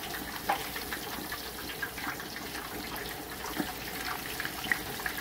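Hot oil in a turkey-fryer pot bubbling and sizzling around a beef roast just lowered into it in a wire basket: a steady bubbling hiss with scattered crackling pops.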